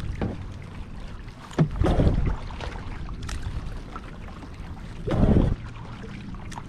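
Kayak paddle strokes in the water: twice, a sharp tick as the blade catches, then a swishing splash as it pulls through, about three and a half seconds apart, over a low steady rush.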